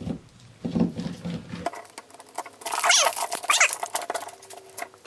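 Plastic packaging crinkling and rustling as a toy doll is unwrapped, loudest about three seconds in.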